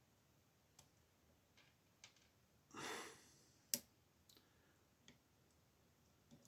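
Faint, scattered metallic clicks of a lock pick working the pins inside an old bronze Yale padlock, about seven in all, one sharper than the rest near the middle. A soft breath out a little before it.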